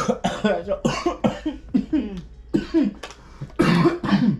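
A person coughing repeatedly in short fits, about eight or nine coughs, choking after spicy ramen broth went down the wrong way.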